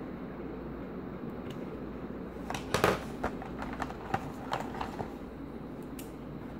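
Handling noise: a cluster of clicks and crackles from a clear plastic packaging tray as a Wi-Fi antenna is set into it and lifted out. It is loudest about three seconds in, with a last click near the end, over a steady low hum.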